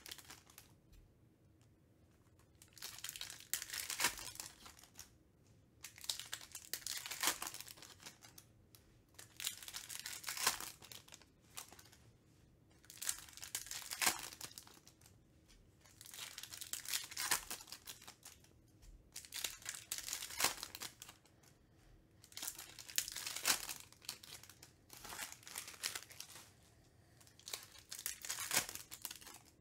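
Trading-card pack wrappers crinkling and tearing as Topps Chrome packs are opened by hand, in short bursts about every three seconds.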